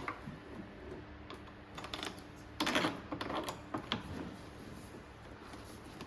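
Irregular clicks and knocks of hard parts and screws being handled and fitted during machine assembly, busiest a couple of seconds in, over a low steady hum.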